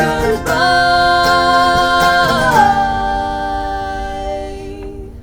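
The closing note of a live folk song: a voice holds a long sung note with vibrato, which drops in pitch about two and a half seconds in. The band's final chord rings on beneath it and fades out near the end.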